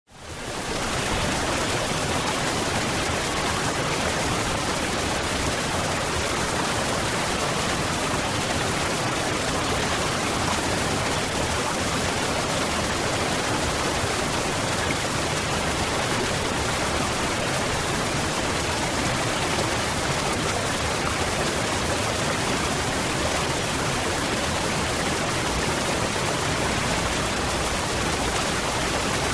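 Waterfall: steady rushing of falling water, fading in from silence over about a second at the start.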